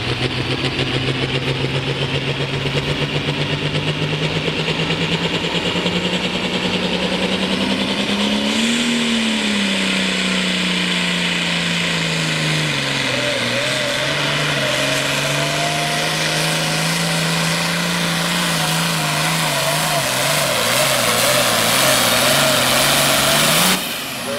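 Hot-farm-class diesel pulling tractor running hard under load while dragging a sled. Its engine pitch climbs to a peak about a third of the way through, sags and holds steady, then rises again before cutting off suddenly near the end.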